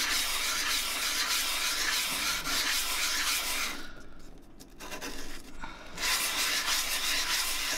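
A metal raw-water pump faceplate rubbed by hand in figure-of-eight strokes on 320-grit sandpaper over a flat Corian top, making a steady sanding sound that stops for about two seconds just past halfway and then resumes. The lapping flattens the plate, taking off its high spots and wear marks.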